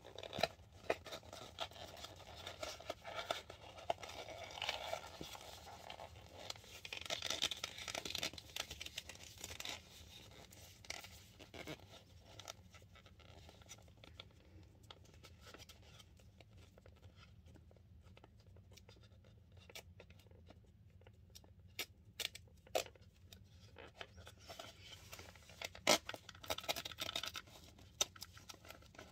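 Paperboard of a cardboard cornstarch box being folded down and torn by hand: scraping, rustling and crinkling, busiest in the first dozen seconds, then sparser scratches and clicks, with one sharp click near the end.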